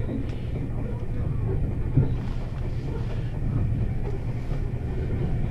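Meitetsu 1200 series electric train running on the line, heard from inside the car: a steady low rumble, with one sharp knock about two seconds in.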